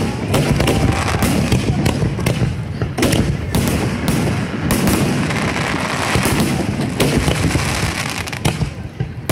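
Fireworks display in full swing: a dense, irregular run of bangs and crackles over a continuous low rumble, thinning a little near the end.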